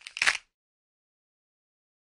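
A brief, noisy sound effect lasting about a quarter of a second, just after the start, as a logo animates in. Dead digital silence follows.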